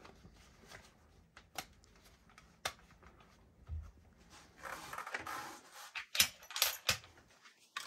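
Handling noise from a Saigo M590 airsoft shotgun being worked apart by gloved hands: scattered clicks and knocks of its parts, a stretch of rustling about five seconds in, and a few sharper clicks near the end.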